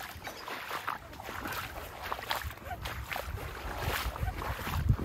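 Water sloshing in short irregular splashes, with wind buffeting the microphone in gusts that grow heavier near the end.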